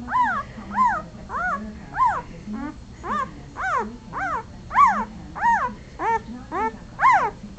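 Four-day-old German Shepherd puppy crying: a steady run of high-pitched squealing whimpers, about two a second, each rising then falling in pitch.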